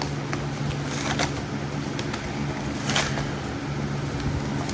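Packaging being handled during an unboxing: a few sharp crinkles and rustles, the loudest about three seconds in, over a steady low hum.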